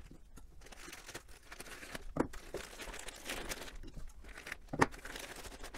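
Plastic DHL courier bag being handled and opened, crinkling irregularly, with two sharper crackles, about two seconds in and a louder one near the end.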